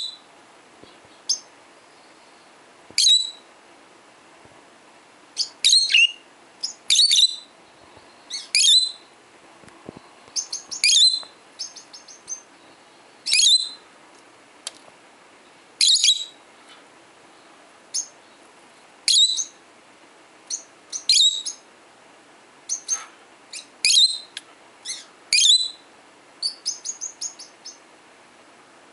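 Lovebirds giving short, high-pitched chirping calls, one every second or two, with a couple of quick runs of softer twittering.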